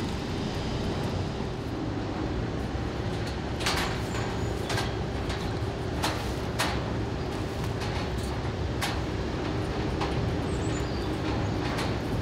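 Steady low rumble with a faint steady hum, and a handful of short sharp knocks about four to nine seconds in.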